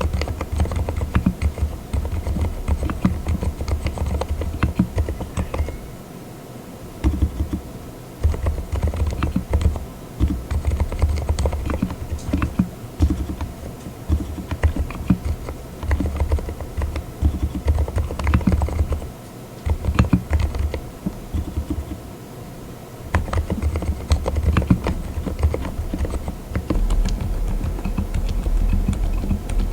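Typing on a mechanical keyboard fitted with Cotton Candy silent linear switches (36 gf): soft, muted keystrokes in quick runs, broken by a few short pauses.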